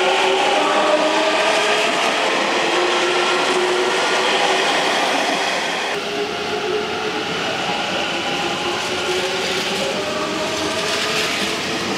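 Hanshin Railway electric train moving along a station platform: wheel rumble on the rails with the whine of its electric traction motors. The whine falls in pitch in the first half; after an abrupt change about halfway, it rises again as a train picks up speed.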